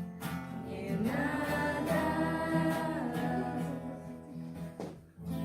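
Closing bars of a Christian worship song: acoustic guitar with singing.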